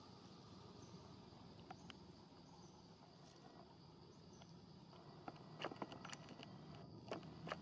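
Near silence: faint outdoor ambience with a steady, thin insect drone. In the last two seconds come a few soft clicks and rustles.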